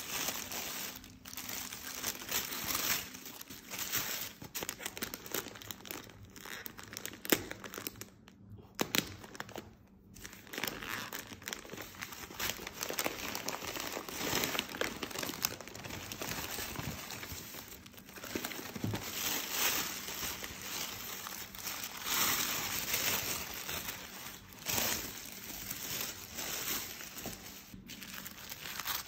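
Thin tissue wrapping paper and packing paper crinkling and rustling as a package is unwrapped by hand, in irregular handfuls with a couple of short pauses near the middle.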